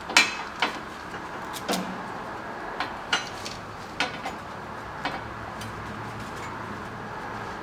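Metal knocks and clanks as a lowering coil spring and its rubber mount are fitted into the rear suspension of a 2016 Camaro SS and seated against the lower control arm: a string of sharp, irregular knocks, the loudest right at the start.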